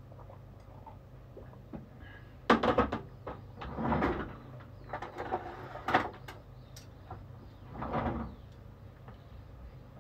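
Kitchen clatter: knocks and rattles of things being handled and set down, in four short bursts about two seconds apart, the sharpest near the start and in the middle.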